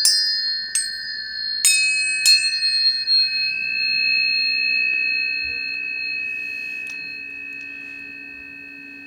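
Tuning forks struck one after another about four times in the first couple of seconds, each strike starting a clear, pure tone. The tones ring on together in a chord and slowly fade.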